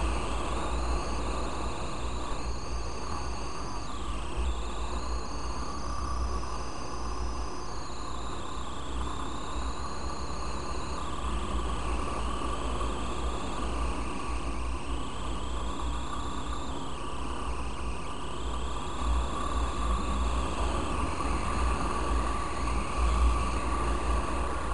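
Yamaha Fazer 250 motorcycle running on the road, with a higher whine that slowly rises and falls as the engine speed changes. Wind rumbles on the microphone underneath it.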